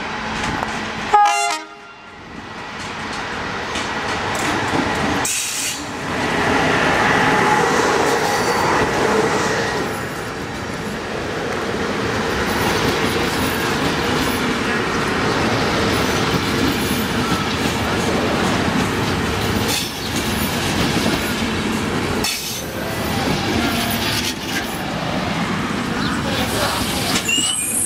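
Short horn blast from a CFR electric locomotive about a second in. Then its passenger coaches roll past close by, a steady rail noise that swells about six seconds in and holds.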